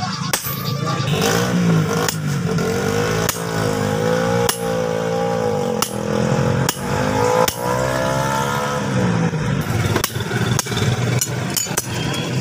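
Hammer blows on metal, a sharp knock about once a second, over an engine that runs steadily and rises and falls in pitch through the middle, like a motorcycle revving.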